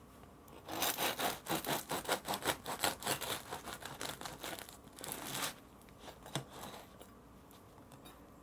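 Serrated bread knife sawing through the hard crust of a freshly baked no-knead loaf: quick rasping strokes, about four or five a second for several seconds, then a few shorter strokes. A sharp knock right at the end.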